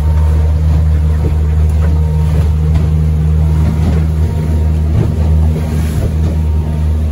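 Fishing boat's outboard motor running steadily at cruising speed, a loud even drone, with water rushing past the hull as the boat moves.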